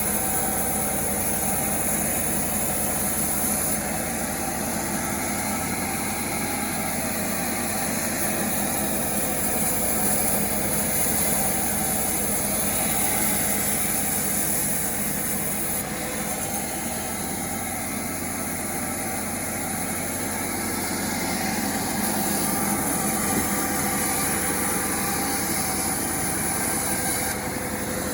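Homemade chainsaw's small engine running steadily, without pause.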